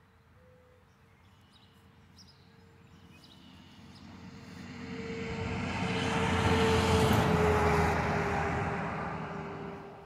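A road vehicle driving past: its noise swells over several seconds, peaks about seven seconds in, and fades away, with a faint tone that drops slightly in pitch as it passes.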